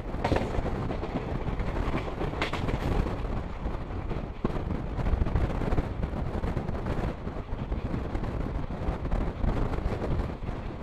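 Steady rumble and rush of the Nilagiri Express passenger train running, heard from aboard a coach, with two sharp knocks in the first few seconds.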